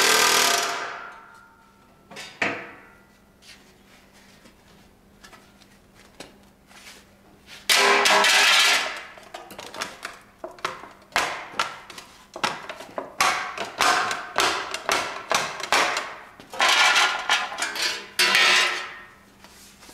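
A pneumatic air hammer mounted in a small power-hammer stand strikes a sheet-steel panel in short bursts of rapid blows, beating a bead into it. Three loud bursts come at the start, about 8 seconds in and near the end, with scattered separate sharp metal strikes between them.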